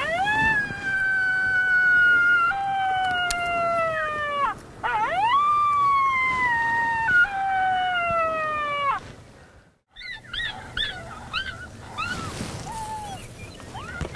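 Coyote howling: two long, slowly falling howls of about four seconds each. After a brief silence comes a quick run of short yips, about two or three a second.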